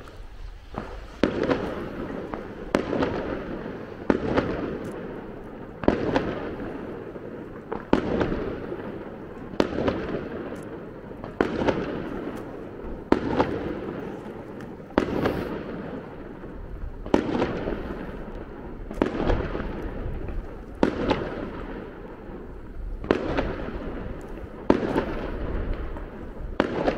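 Fireworks going off: a steady run of sharp bangs, about one every two seconds, starting about a second in. Each bang is followed by a rolling rumble as it dies away.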